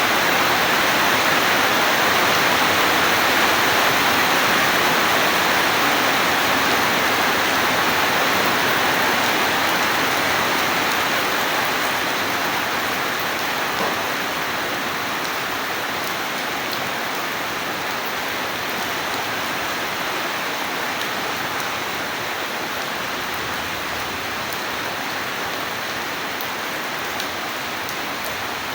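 Steady heavy rain falling, easing a little about halfway through.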